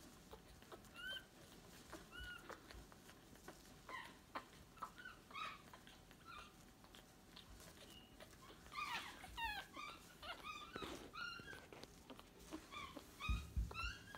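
Newborn Staffordshire Bull Terrier puppies squeaking and whimpering in short, high-pitched cries, busiest about two-thirds of the way through. A few low thumps come near the end as a hand handles them.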